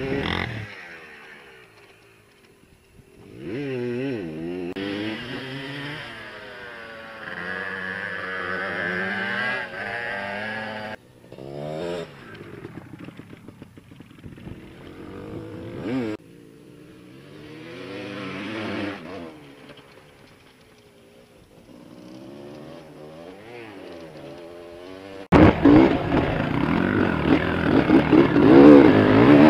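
Dirt bike engines revving up and down, their pitch rising and falling as the bikes ride past across the field. Near the end it cuts abruptly to a much louder dirt bike engine heard up close from the riding bike itself.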